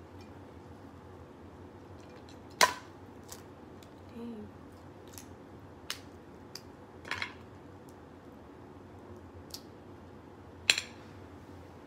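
Snow crab leg shells being cracked and snapped apart by hand: scattered sharp cracks, the loudest about two and a half seconds in and again near the end.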